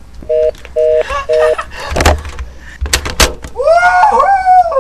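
A telephone line's busy tone: three short beeps of two steady tones sounding together, heard once the prank call has hung up. A few sharp clicks follow, then near the end a man's voice drawing out "Awwwww yeah".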